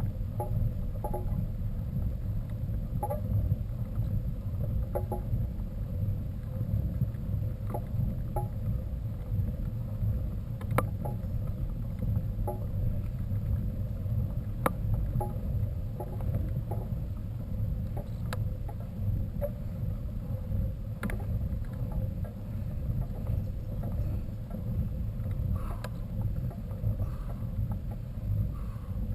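Steady low rumble of wind buffeting the microphone, with scattered light clicks and knocks.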